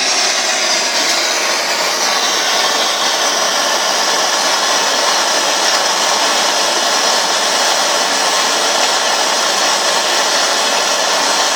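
Gas blowtorch flame burning with a steady hiss, heating a cylinder toward near red heat for silver soldering.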